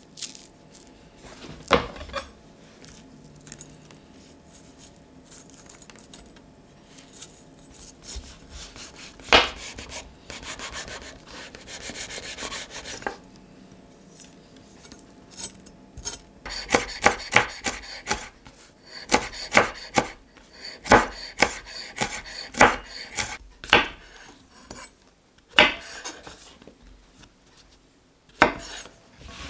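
Chef's knife chopping red chilli and button mushroom on a wooden cutting board, with a quick run of sharp knife strikes on the wood in the second half. Earlier there are scattered taps and a stretch of rubbing and scraping as the chilli is handled and deseeded.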